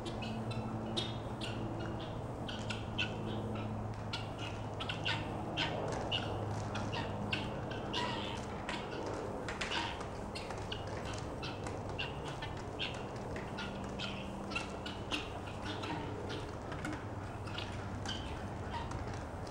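Farmyard poultry calling: many short squawks and chirps, scattered and overlapping, over a low steady hum.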